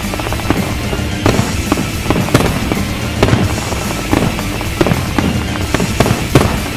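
Aerial fireworks exploding in a rapid series of sharp bangs, about a dozen in a few seconds, over music playing along with the show.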